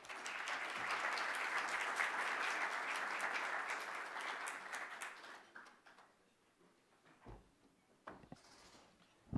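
Audience applauding, lasting about five seconds before dying away. A few soft knocks follow near the end.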